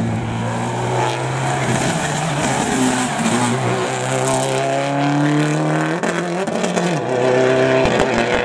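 Subaru Impreza rally car's turbocharged flat-four engine accelerating hard past at full load, its note climbing, with a sharp drop in pitch at an upshift about six seconds in and another about a second later, then pulling away.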